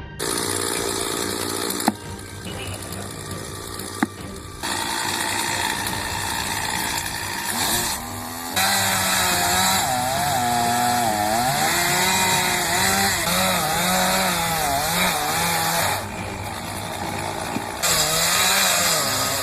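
Two-stroke chainsaw running and cutting wood, its engine pitch rising and falling under load, across several spliced clips with abrupt changes. A couple of sharp knocks come in the first few seconds.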